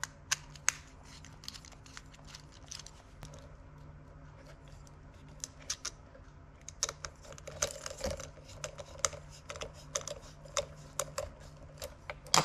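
Scattered light clicks and taps of a small screwdriver working the screws loose on a plastic fin strap mount, and of the hard plastic mount and metal spring strap being handled. The clicks come thicker in the second half.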